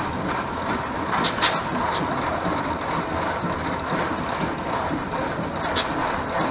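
Antique Hart-Parr tractor engine running steadily at low speed, with a few sharp clicks about a second in, again at two seconds, and near the end.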